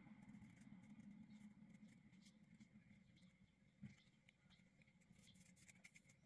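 Near silence with faint handling noise as velvet ribbon is pressed onto a glued thin metal headband: a few soft clicks and a light tap about four seconds in.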